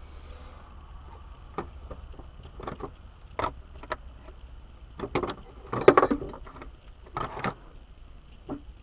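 Hand tools and parts clicking and knocking irregularly while a van's steering column is being taken apart, with the loudest clatter about six seconds in, over a faint low hum.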